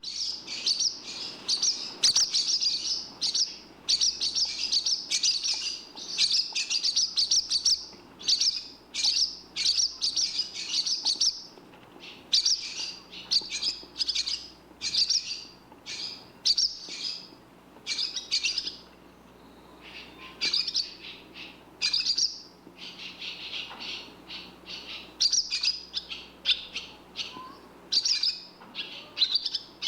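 Barn swallow twittering in quick, high chattering phrases, nearly unbroken for the first dozen seconds, then in shorter bursts separated by brief pauses.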